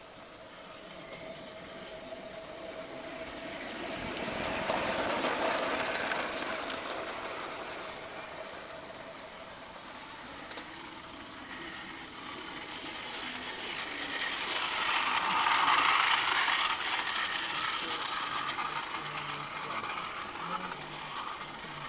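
A 16mm-scale coal-fired live-steam model train running on a garden railway. It grows louder and fades away twice, passing closest about five seconds in and again about fifteen seconds in.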